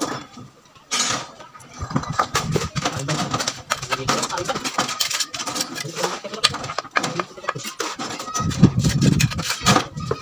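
Repeated knocks and clicks of split river stones and a trowel as a stone foundation is laid in mortar.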